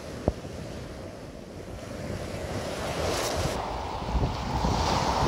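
Small surf breaking and washing up a sandy shore, with wind on the microphone, growing louder in the second half. A single short click sounds just after the start.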